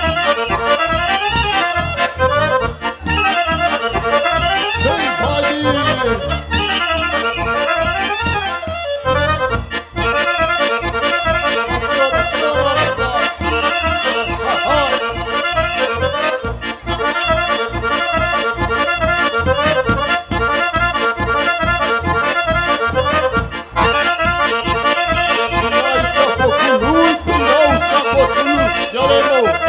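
Accordion playing a traditional Romanian folk tune over a steady pulsing bass rhythm.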